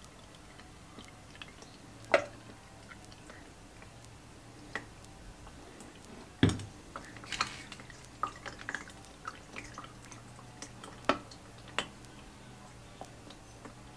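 Used engine oil dripping through a large funnel into a plastic jug, with scattered small drip clicks and a few sharper knocks from handling, the loudest about six and a half seconds in.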